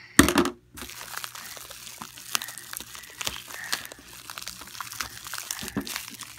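Bubble wrap and a clear plastic bag crinkling and crackling as hands pull and tear them off a small toy, with a brief loud rustle near the start and then a steady run of small crackles.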